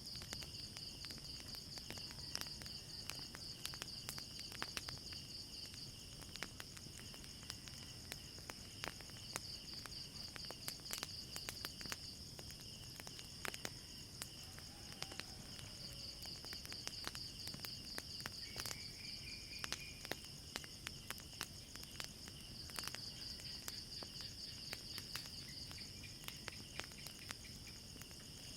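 Crickets chirping in a steady, high, pulsing trill, with the sharp crackles and pops of a wood fire scattered throughout over a low rumble.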